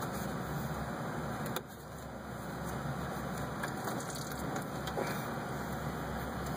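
Engine coolant running out of a radiator drain and splashing into a bucket below, a steady rushing noise with a couple of light clicks.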